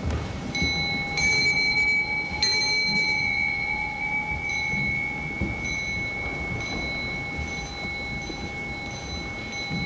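A metal temple bell rung with a striker: a few strokes in the first two and a half seconds, then a long, steady, high ring that carries on to the end.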